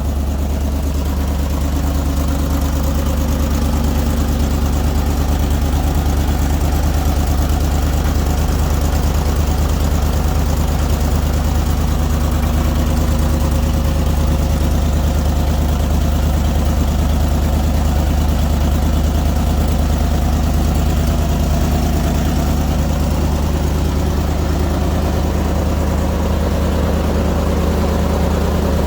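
Engine idling steadily just after an easy start, with a low, even hum and no change in speed.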